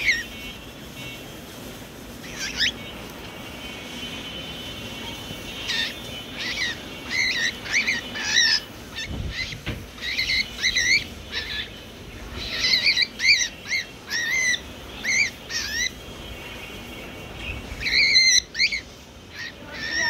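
Cockatiel giving short, sharp, repeated calls, often several a second, from an agitated, angry bird. The calls come in a dense run through the middle and again near the end.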